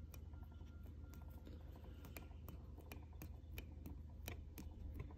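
Faint, irregular clicks and taps of a head gasket being pressed and rocked by hand on a cylinder head, the gasket pivoting on a raised lip around the combustion chamber instead of sitting flat, over a low steady hum.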